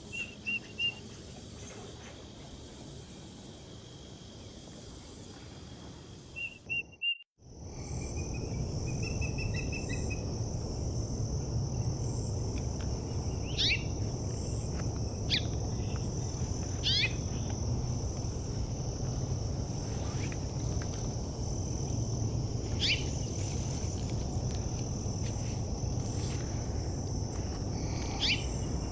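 Forest bird-sound ambience with short bird chirps, then a brief dropout about seven seconds in. After it, a steady high insect drone runs under sharp, down-sweeping bird calls every couple of seconds.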